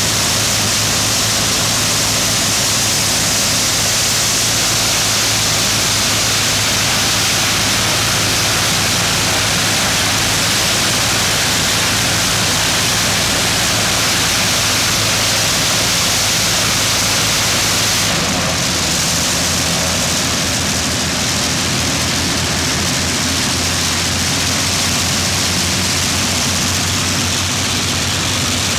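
Rolls-Royce V12 aero engine on a ground-run trailer running at power with its propeller turning: a loud, dense, steady engine and propeller noise. About two-thirds of the way through it eases back slightly to a lower note.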